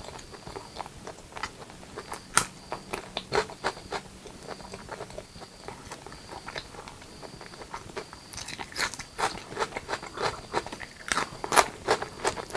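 Close-miked chewing and mouth sounds of eating chicken curry with rice: irregular wet smacks and clicks, growing busier in the last few seconds.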